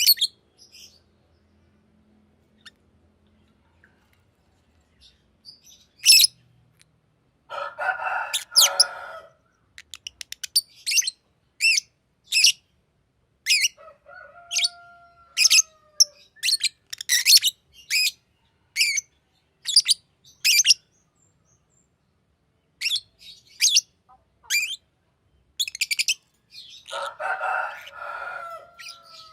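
Green lovebird chirping: sharp, short, high chirps in quick series, broken by two bursts of scratchy chatter, one about eight seconds in and one near the end. The first few seconds are nearly quiet.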